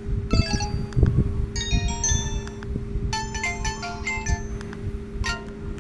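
Samsung GT-E1195 mobile phone playing one of its built-in ringtones through its small speaker: quick runs of bright, chime-like electronic notes in about four short phrases with pauses between them.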